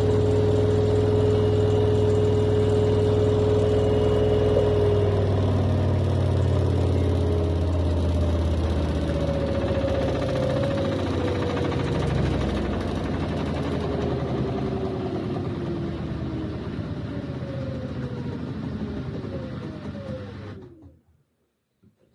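Washing machine drum and motor running steadily at speed, then winding down with a slowly falling whine and coming to a stop near the end.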